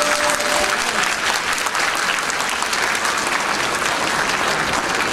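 Audience applauding, many people clapping steadily; the last held note of the music dies away about half a second in.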